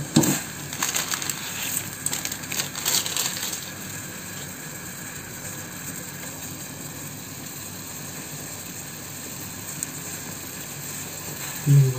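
A metal spoon scraping and clinking against a metal cooking pot as boiled instant noodles are scooped out, in irregular strokes over the first few seconds. After that only a steady faint background hum.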